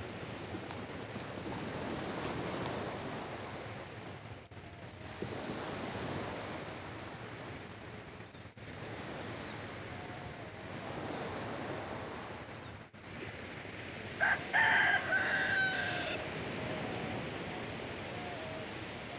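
Small waves washing on a shallow shore, a steady hiss of surf that swells and eases every few seconds. Near the end a bird calls once, a pitched call of about two seconds that is the loudest sound.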